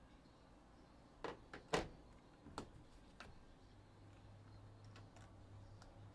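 A few sharp clicks and knocks from handling things at a desk. There is a cluster about a second and a half in that holds the loudest knock, then lighter ticks, over a low steady hum that comes in about halfway.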